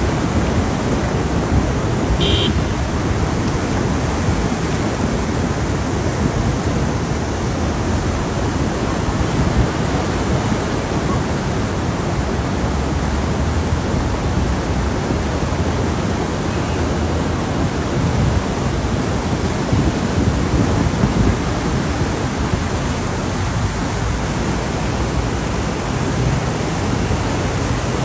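Flash flood: a fast torrent of muddy floodwater rushing through a riverbed, a steady heavy rush of noise that does not let up.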